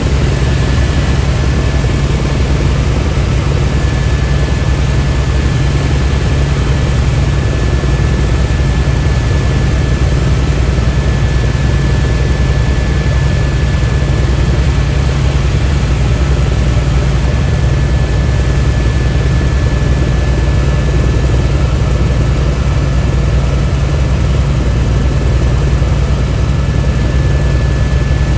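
Helicopter in flight heard from inside the cabin: a loud, steady drone of rotor and engine with a thin steady high whine over it.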